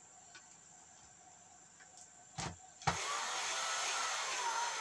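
A couple of light knocks, then a cordless drill-driver runs for about two seconds driving a mounting screw into a plasma TV's power-supply board; its whine drops slightly in pitch near the end as the screw seats.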